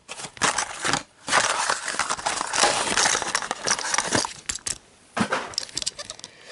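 Stiff plastic blister pack being cracked and peeled off its cardboard backing card, a dense crinkling crackle for about four seconds, then a few sharp clicks as the plastic comes free.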